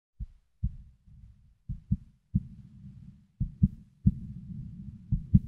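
A heartbeat sound effect at the start of a song's intro: pairs of low, thudding beats about once every second and a half over a low rumble, leading straight into the music.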